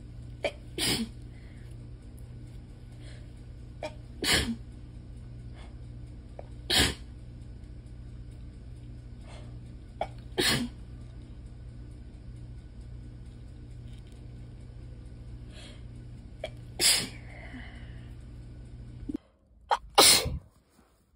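A person sneezing repeatedly, five sneezes a few seconds apart, each with a short catch of breath just before it, over a steady low hum. After a sudden cut, one more sneeze comes near the end.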